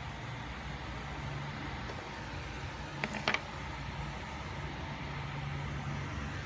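Steady low background hum, with a quick cluster of two or three sharp metallic clicks about three seconds in as the bimetallic 20-peso coins are handled.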